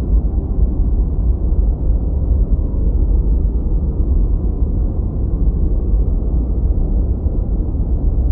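Steady low rumbling drone with its weight in the deep bass and no separate events standing out.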